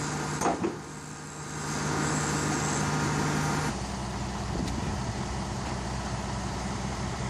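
Heavy tractor unit's diesel engine idling steadily, with a short sharp noise about half a second in. The engine sound changes abruptly a little under four seconds in.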